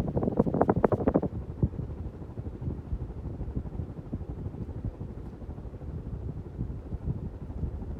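Polished brass 1986 Casablanca Zephyr ceiling fan running at speed 6, its highest, with the downdraft buffeting the microphone in a low, gusty rumble. The buffeting is strongest for about the first second, then settles to a steadier rush.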